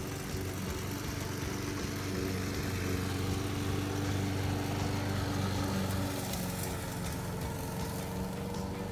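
Walk-behind gasoline push mower's engine running steadily while the mower is pushed across the lawn cutting grass.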